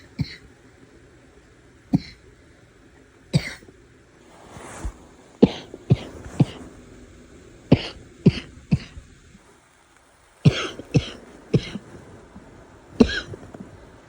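A woman coughing over and over: harsh, barking coughs, some single and some in quick runs of three, with a breath drawn in between.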